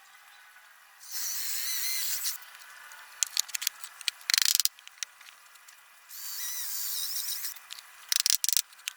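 Power drill running in two short bursts with a wavering whine, each burst followed by a string of sharp clicks and a quick rattle.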